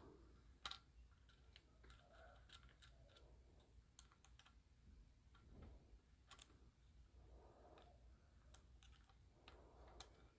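Faint, irregular small clicks and scrapes of a lock pick and tension wrench working the pins of a cross lock.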